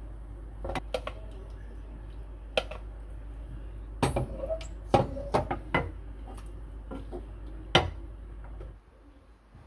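Dishes and utensils clinking and knocking in a kitchen: about a dozen sharp separate knocks, loudest about four, five and eight seconds in, over a steady low hum that stops near the end.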